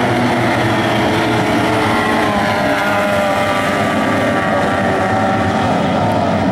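A pack of stock outboard racing boats running at racing speed, several high-pitched outboard engines whining together, their pitches shifting as the boats pass and turn.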